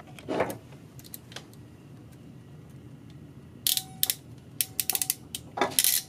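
Hand crimping tool closing on an insulated butt connector to join wires: a dense run of sharp metallic clicks over the last two seconds or so, after a brief rustle of wires about half a second in.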